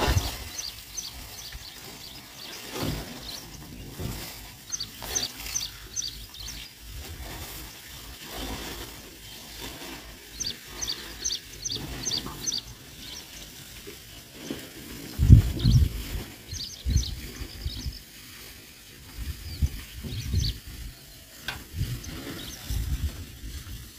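A bird calling over and over in quick runs of short, high chirps, about five or six a second. Low rumbling thumps come and go underneath, the loudest about fifteen seconds in.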